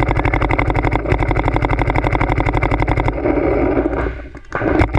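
A Dye DM7 electropneumatic paintball marker firing rapid strings of shots, a dozen or so a second. The firing breaks off about three seconds in and starts again near the end.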